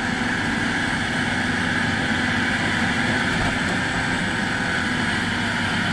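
Excavator diesel engine running steadily at an even speed.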